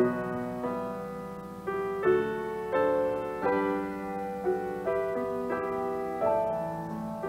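Grand piano played at a slow, gentle pace, a new chord or melody note struck every half second to a second and left to ring and fade.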